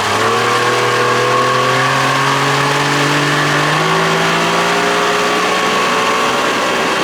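Outboard motor pushing a boat, its pitch climbing steadily as the boat speeds up, with a quick step up about four seconds in, then holding at speed.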